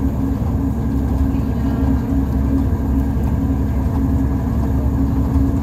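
Diesel passenger train running, heard from inside the carriage: a steady low rumble with a constant hum.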